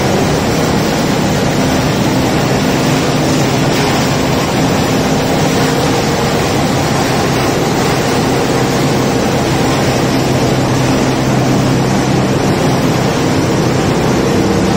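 Recycled-textile fibre opening line running: hopper feeders and opening machinery make a loud, steady machine noise with a constant low hum.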